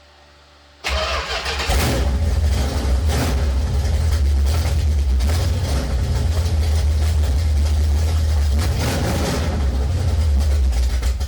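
1970 Plymouth Cuda's 440 V8 engine starting up about a second in, then running steadily.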